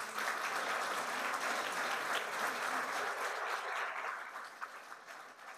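An audience applauding, a roomful of people clapping, dying away over the last second or so.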